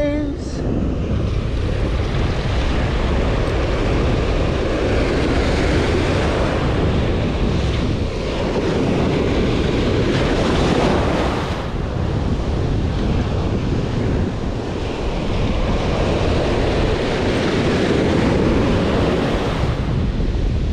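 Ocean surf washing in and breaking around the angler's legs, a loud steady rush of water that swells and eases every few seconds, with wind buffeting the microphone.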